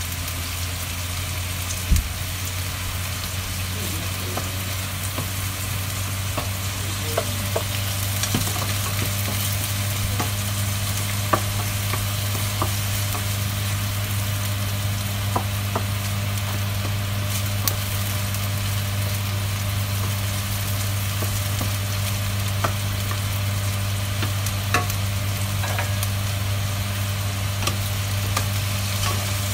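Chicken pieces sizzling in a nonstick frying pan as a wooden spatula stirs them, with scattered clicks of the spatula against the pan, over a steady low hum.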